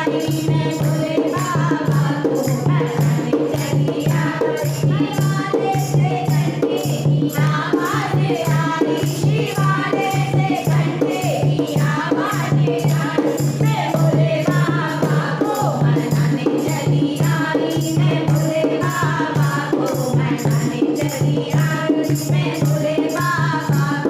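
Kirtan group performing a Hindi devotional bhajan to Shiva: voices singing a melody over a steady low drone, with rattling hand percussion keeping an even beat.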